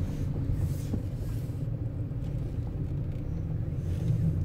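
Steady low rumble of an idling diesel truck engine.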